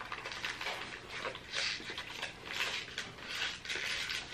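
Plastic candy-bar wrapper crinkling in a series of short crackles as it is handled and peeled back from a chocolate bar.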